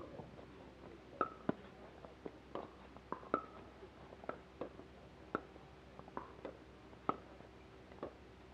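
Pickleball paddles striking a hard plastic ball: about a dozen sharp, hollow pocks at uneven intervals, some in quick pairs, several with a short ringing tail.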